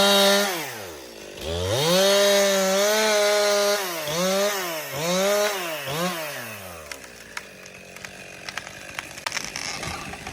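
Chainsaw revved to high speed: a short burst at the start, a held run of about two seconds, then three quick blips of the throttle, before it drops back to idle about seven seconds in.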